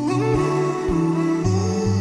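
Background music: a slow melody of held notes that change pitch every half second or so.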